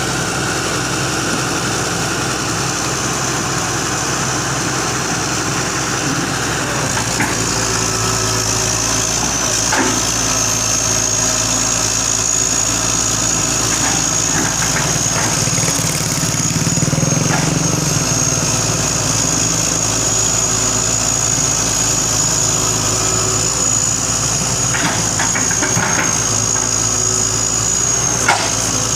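Hitachi excavator's diesel engine running steadily, with a thin high-pitched whine held throughout and a few short knocks.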